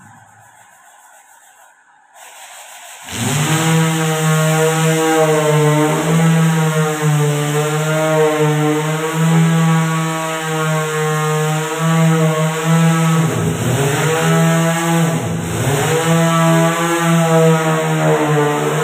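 Corded handheld electric power tool starts about three seconds in and runs with a steady motor hum. Its pitch dips twice near the middle of its run as it is pressed into the wooden door frame.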